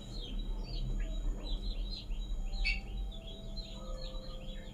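Small birds chirping in the background: a rapid series of short, high chirps, many falling slightly in pitch.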